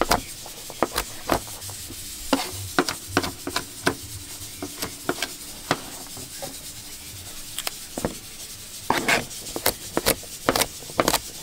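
Large kitchen knife chopping fresh coconut flesh on a plastic cutting board: irregular sharp knocks of the blade against the board, thinning out for a moment in the middle and coming faster near the end.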